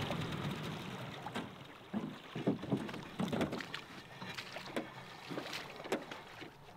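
Small gas motor on an aluminium jon boat running and fading as it is throttled back during the first couple of seconds. Then scattered light knocks and water splashes as the boat drifts.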